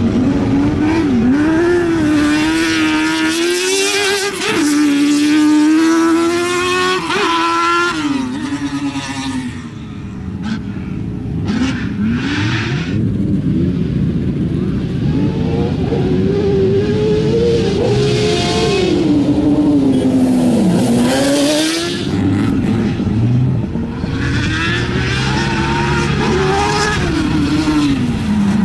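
Twin-engine Suzuki autocross buggy driven hard on dirt. Its engine note climbs and drops over and over as the driver goes through the gears and lifts off for corners.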